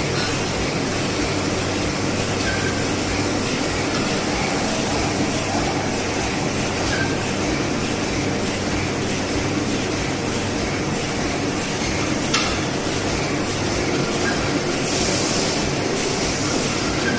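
Forging air hammer and shop machinery running with a steady rumble and low hum, and no regular run of hammer blows. There is one sharp metallic knock about twelve seconds in.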